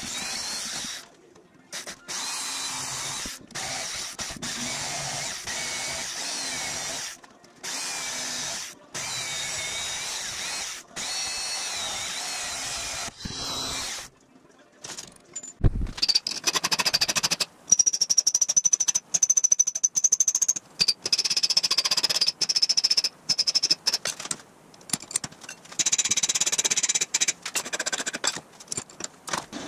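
Portable band saw cutting a steel bar clamped in a vise, in several short runs with sudden breaks. After a low thump about halfway through comes louder, choppier metalwork with a high squeal, and near the end a hand file is worked across the steel.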